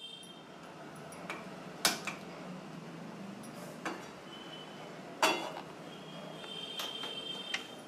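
Gas stove burner lit and a steel kadhai set on its pan support: a few sharp clicks and knocks, the loudest a metal clank a little over five seconds in, over a steady hiss.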